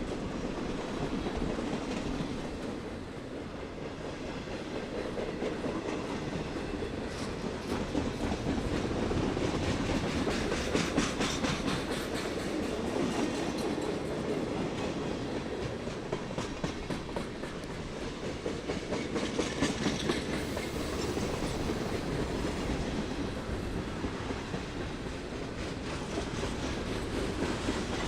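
Freight train rolling past, a steady rumble with runs of steel wheels clicking over rail joints, heaviest about a third of the way in and again around two-thirds through.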